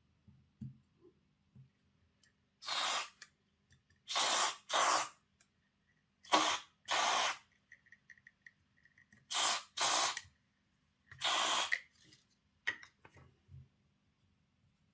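Aerosol contact cleaner sprayed in about eight short hissing bursts, mostly in quick pairs, flushing thick waxy lubricant out of a model locomotive's gearbox. Small faint clicks come between the bursts.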